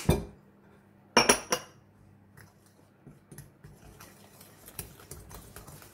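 A utensil clinking against a glass mixing bowl: one click at the start, then a quick cluster of ringing clinks just over a second in, followed by faint light clicks and scraping as cocoa is tipped in and mixed.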